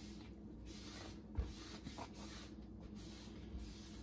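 A cloth rag rubbing back and forth over stick-on rail guards on a Onewheel Pint, a faint scratchy hiss coming in strokes as the pressure adhesive is pressed down to work out air bubbles. There is a soft bump about one and a half seconds in.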